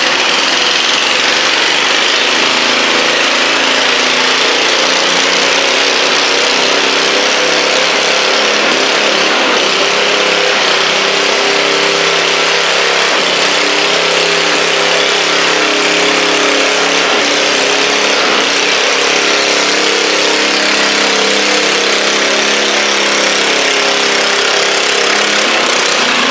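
Stock garden tractor's small engine running hard under load as it drags a weight sled through dirt: a steady engine drone with a loud hiss over it.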